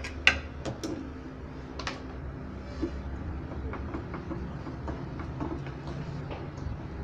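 Sharp clicks and light knocks of an opened power adapter's plastic case and circuit board being handled, the loudest about a quarter second in and fainter ticks after, over a steady low hum.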